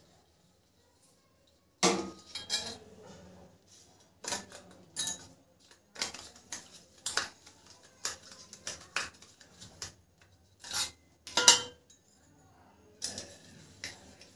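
Small stainless steel plates clinking and knocking, with light scrapes, as they are picked up, handled and set down while being greased with ghee. The clinks come irregularly, starting about two seconds in, and the loudest falls a little past the middle.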